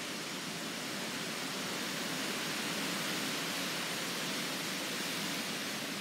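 Storm-force wind rushing through trees and foliage, a steady roar of leaves that swells a little midway.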